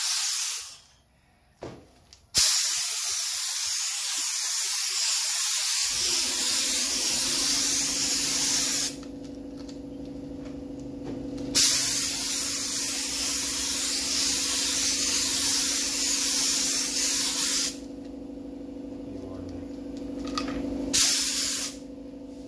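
Gravity-feed spray gun spraying automotive clear coat onto wooden drawer fronts, hissing in passes: a brief burst at the start, then two long passes of about six seconds each, and short bursts near the end. A steady low hum joins about six seconds in.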